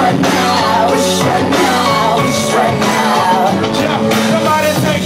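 Live hip-hop concert music: a loud backing track with a sung vocal melody over it, recorded on a phone in the audience.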